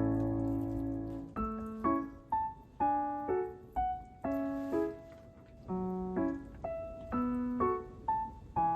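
Background piano music: a sustained chord fading, then a gentle melody of single notes and small chords struck about twice a second.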